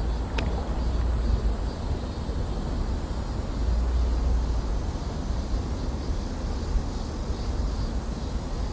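Steady rush of a flowing stream with low wind rumble on the microphone. A single sharp click about half a second in.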